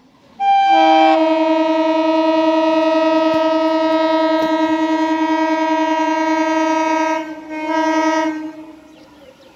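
Horn of an approaching EMU local train sounding one long steady blast of about seven seconds, then a short second blast.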